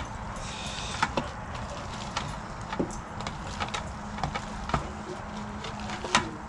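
Food-prep handling noise: hands working seasoning into raw quail meat in a plate set in a steel pan, with scattered light clicks and knocks, over a steady low hum.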